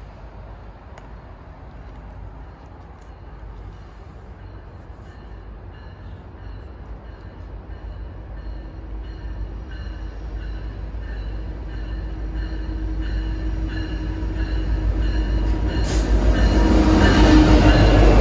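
Union Pacific freight train approaching at speed, the rumble of its diesel locomotives growing steadily louder. The lead locomotives rush past about two seconds before the end, bringing a sudden loud burst of engine and wheel noise.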